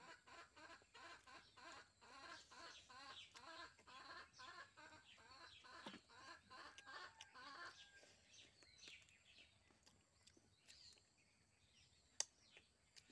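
A chicken clucking faintly, a quick even run of short calls about three a second that stops about two-thirds of the way through. A single sharp click near the end.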